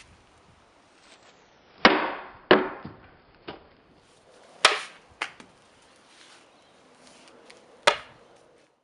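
A series of about six sharp impacts, each dying away quickly. The loudest are a pair about half a second apart near the start, another about halfway through, and a last one near the end.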